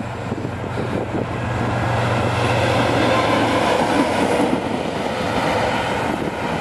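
Class 311D (Vossloh Euro 4000) diesel locomotive passing close by, its engine running with a steady low hum over wheel-on-rail noise. The sound grows loudest as it goes past, about halfway through.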